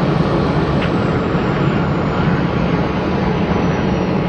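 Boeing 737 jet engines running, a loud steady roar with a thin high whine slowly falling in pitch.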